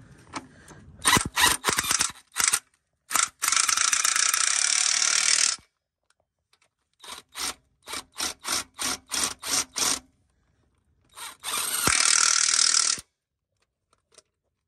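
Power tool driving the engine-mount bracket bolts home, in two steady runs of about two seconds and one second. Between and before the runs come strings of sharp clicks at about three a second.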